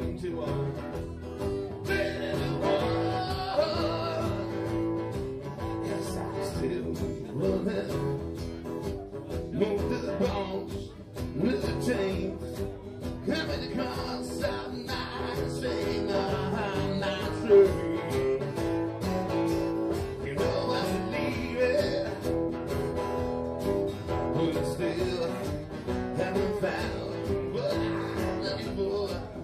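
Live blues band playing a bluesy arrangement of a rock song, with guitar to the fore.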